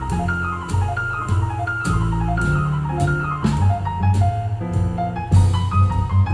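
Jazz played back over Avalon Acoustics loudspeakers in an exhibition listening room: quick falling runs of notes repeat over a walking bass line, with drum-kit and cymbal strikes.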